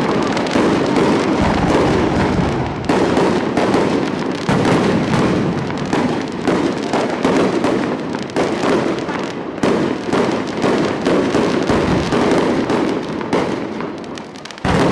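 Fireworks display: a dense, continuous barrage of rapid bangs and crackles, easing briefly near the end before another loud burst.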